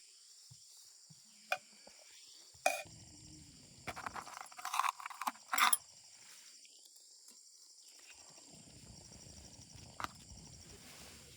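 Scattered sharp knocks and a brief clatter of utensils about halfway through, over a faint steady drone of insects.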